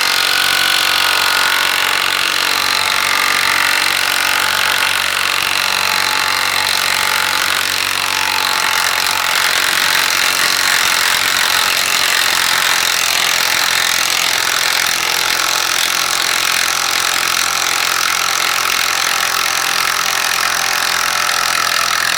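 Enertwist brushless 1/4-inch impact driver running in reverse, hammering steadily and without pause as it tries to back a bolt out.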